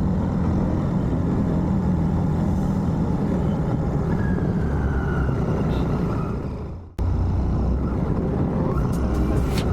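Royal Enfield Shotgun 650's parallel-twin engine running steadily while the bike is ridden, with a low rumble under the road and wind noise. About seven seconds in the sound fades away and cuts straight back in, and a few sharp clicks follow near the end.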